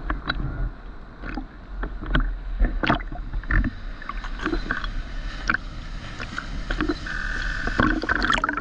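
Seawater sloshing and slapping against a GoPro in its waterproof housing held at the surface, with many small irregular splashes and clicks of water on the case over a low rumble.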